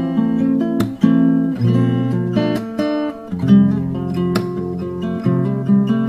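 Background music carried by an acoustic guitar, with strummed chords and picked notes that change every second or so.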